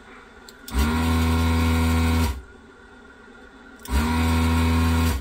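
Desoldering gun's built-in vacuum pump switched on twice, a steady motor hum of about a second and a half each time, sucking molten solder off a circuit board's capacitor leads.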